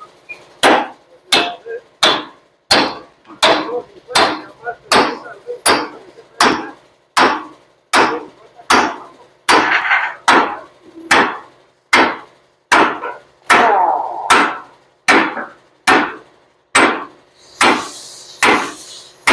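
Steel king pin being hammered down through a Ford Cargo 1721 front axle's steering knuckle with a drift: a steady run of metal-on-metal hammer blows, about three every two seconds, each ringing briefly, as the pin works its way into its fit.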